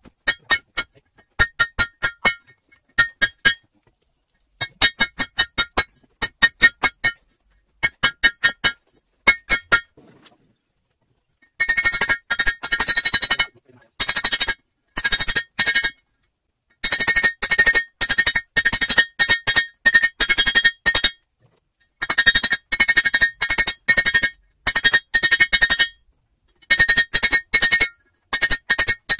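Hand hammer forging red-hot leaf-spring steel on an I-beam anvil: quick blows in bursts of several, each with a bright metallic ring, with short pauses between bursts. About a third of the way in the bursts grow longer and the ring louder.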